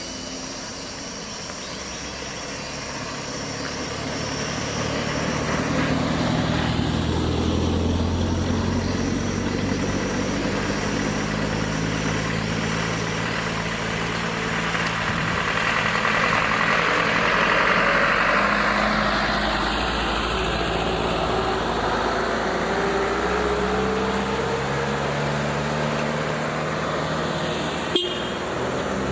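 Motor vehicle engine running with tyre and road noise, swelling to its loudest about two-thirds of the way through and then easing off. There is a single sharp click near the end.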